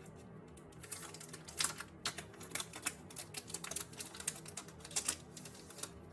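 Rapid, irregular crackling clicks of photocard packaging being handled and opened, starting about a second in, over faint background music.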